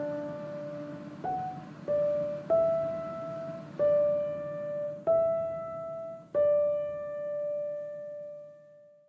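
Background piano music: a slow melody of single notes, each struck and left to ring, the last one fading out near the end.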